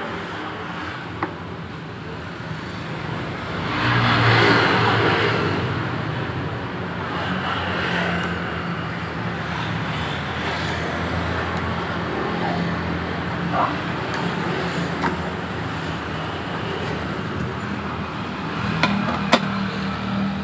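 Steady motor vehicle engine and traffic noise, swelling louder about four seconds in as if a vehicle passes close by, with a few light clicks of tools being handled.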